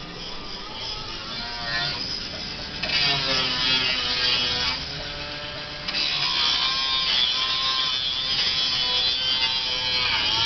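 Power tool motor whirring, its pitch sagging and recovering as it is worked. It gets louder about three seconds in, eases off for about a second, then comes back and keeps running.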